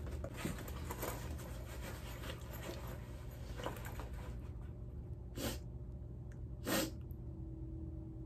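Steady low room hum with faint rustling at first, then two short breathy exhales through the nose about a second apart.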